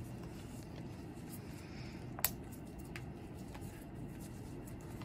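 Plastic peritoneal-dialysis drain bags and their tubing being handled: a few faint rustles and soft clicks, with one sharper click about two seconds in, over a steady low room hum.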